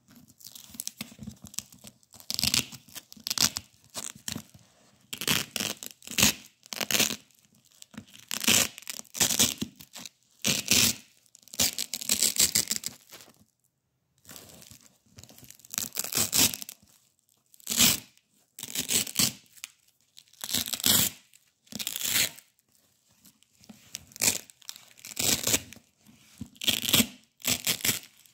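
Wide black Velcro hook-and-loop tape being peeled apart by hand: a long series of short ripping crackles, about one a second, with one brief pause just past the middle.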